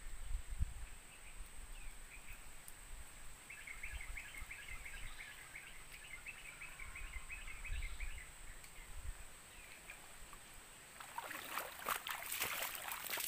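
A bird chattering in quick runs of calls for a few seconds in the middle, over a steady high whine and a low rumble. Near the end, loud rustling and knocks of handling as the fishing rod is set down and propped in its stand.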